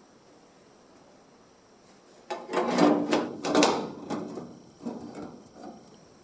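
Quiet at first, then a little over two seconds in a cluster of clattering knocks and scrapes, as of things being picked up, moved and set down, trailing off into a few softer knocks.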